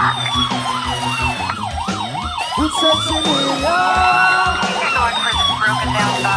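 Electronic police siren in a fast yelp, its pitch sweeping up and down about four times a second. A little past halfway it holds for about a second, then goes back to the yelp. Reggae music with a steady beat plays underneath.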